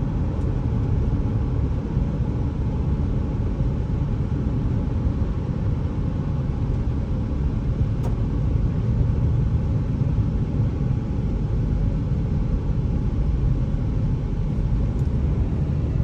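Car driving along the road: a steady low rumble of engine and tyre noise from inside the moving car.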